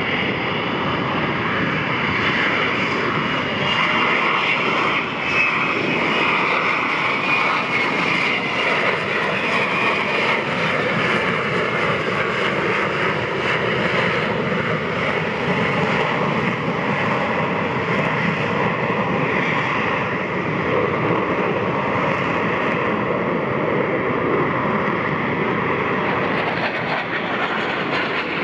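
F-35B's jet engine and lift fan running at high power in slow, gear-down STOVL flight: a steady, loud jet noise with a high whine that drifts slowly in pitch.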